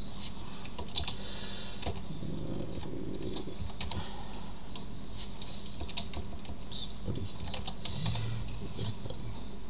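Computer keyboard keys tapped at irregular intervals, scattered single keystrokes, over a steady low electrical hum.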